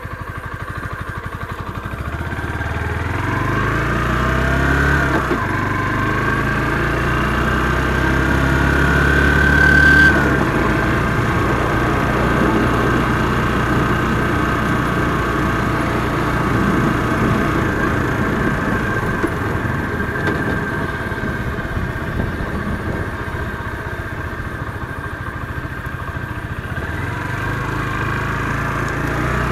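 Motorcycle engine running on the move. It picks up over the first few seconds and is loudest about ten seconds in, then eases into a steady rushing noise with the engine lower underneath, and builds again near the end.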